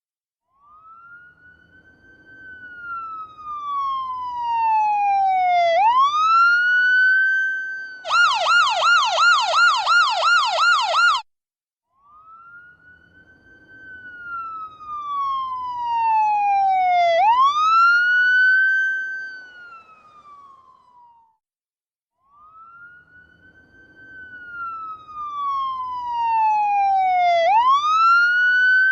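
Ambulance siren sounding a slow wail: each cycle is a long falling tone that snaps quickly back up. About eight seconds in it switches to a fast yelp of about three sweeps a second, which cuts off suddenly. The wail then returns twice, each pass swelling louder and then fading away.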